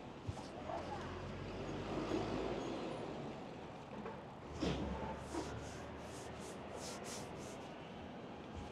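Street ambience on a city road: a steady low traffic rumble with scattered knocks, and a run of short high hisses about two-thirds of the way through.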